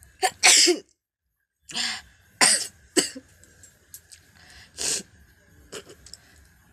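A woman sneezing and coughing in a string of short, sharp bursts, the loudest about half a second in. The sneezes are forced by tickling her nose with the end of her saree.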